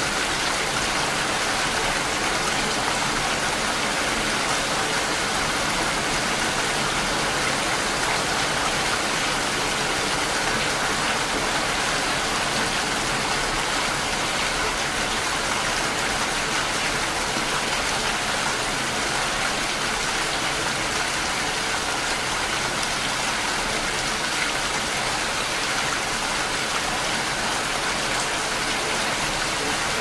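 Steady rain falling: an even hiss that does not let up.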